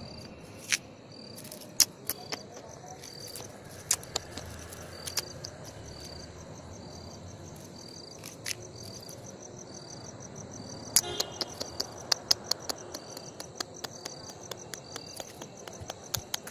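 Crickets chirping steadily in short repeated chirps over a continuous high trill. Scattered sharp clicks and taps come over the top, thicker in the second half.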